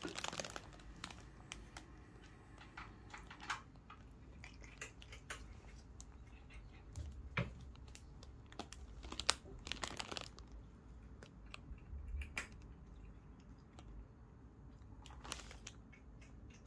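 Faint, scattered crunchy clicks and crinkles: a cat nibbling a sprig of fresh arugula held out by hand.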